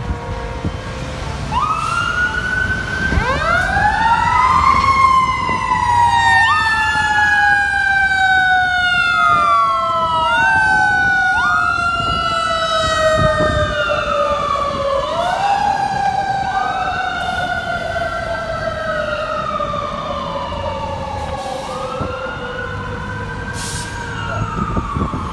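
Fire engine's siren wailing, again and again rising quickly in pitch and then falling slowly over several seconds, loudest about five seconds in. A steady low engine and traffic rumble runs beneath it.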